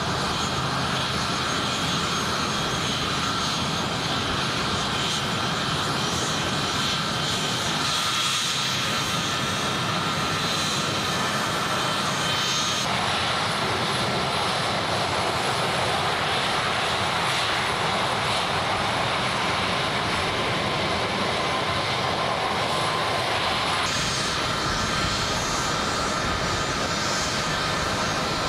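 Turbofan engines of large military jets taxiing: a steady jet rush with high whining tones. The sound changes abruptly about halfway through and again near the end as the shot passes from a C-17 Globemaster III to a KC-135 Stratotanker and then to an A330 tanker.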